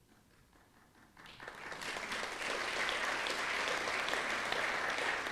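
Audience applauding. The applause starts about a second in, builds quickly and then holds steady as many hands clapping.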